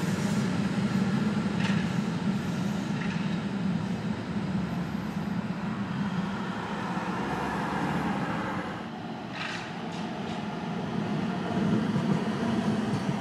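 A tram running past on a city street: a steady low hum and rumble of motor and wheels, with brief sharp high noises about two seconds in and again about nine seconds in.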